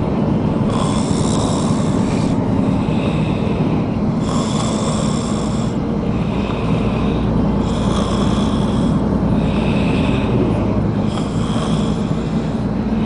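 A man snoring heavily, a rasping, pig-like snore repeating every few seconds, over the steady low rumble of the moving vehicle.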